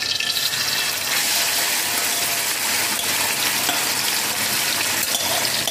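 Yogurt-marinated chicken sizzling steadily in hot oil as it is scraped from a bowl into a wok.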